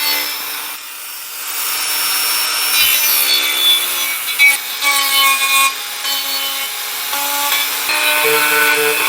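An old Dremel rotary tool with a fluted cutting bit running and grinding down hardened putty lettering: a steady motor whine with scraping as the bit cuts.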